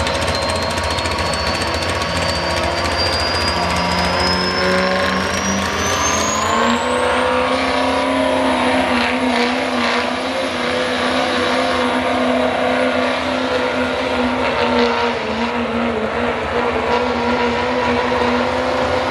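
Pulling truck's engine at full throttle dragging the weight sled down the track. The engine note and a high whine climb together over the first several seconds, then hold steady at high revs.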